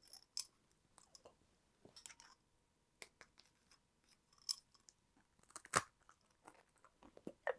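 Faint clicks and handling of a small jar and food, then a single crisp crunch as a crunchy snack is bitten, about three quarters of the way through, followed by quieter chewing.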